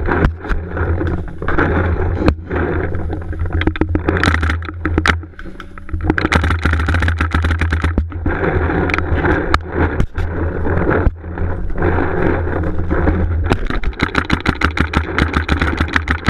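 Paintball markers firing in quick strings of several shots a second, with paintballs smacking against the inflatable bunker, over a steady low rumble.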